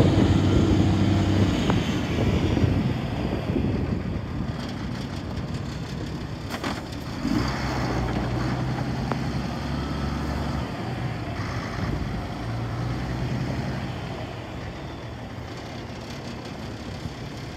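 Diesel engine of a Renault Kerax 420 dCi truck tractor running as the truck moves slowly about at low speed, its engine note shifting in steps. It is loudest at the start and slowly grows fainter.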